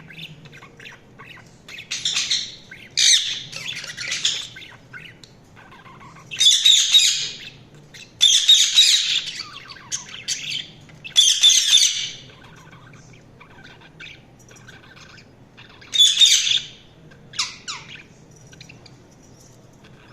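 Budgerigars squawking and chattering in repeated loud bursts of about a second each, with quieter twittering between them and a faint low hum underneath.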